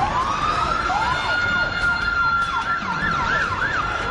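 Emergency vehicle sirens: one sweeps up in a slow wail, then switches to a fast yelp of about four cycles a second, over a steady high tone from another siren.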